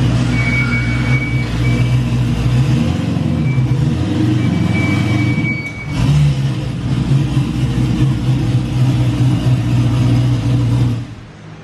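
LS V8 in a G-body car running while the car is backed up, with a thin high brake squeal coming and going through the first half. The squeal comes from the brakes fighting the spool rear end as the car reverses. The engine sound drops away near the end.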